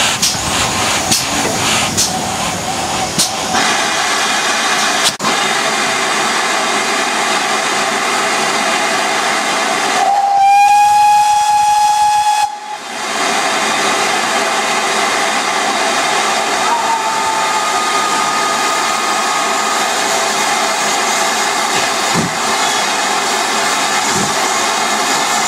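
GWR 52xx 2-8-0 tank engine No. 5238 hissing steadily with escaping steam, with a few light clicks in the first seconds. About ten seconds in, its steam whistle gives one long, steady blast of about two seconds, the loudest sound.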